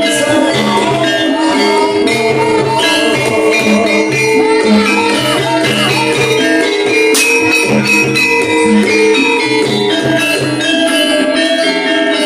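Live gamelan music for a kuda lumping dance: repeating pitched metallophone notes over kendang drumming in a steady rhythm.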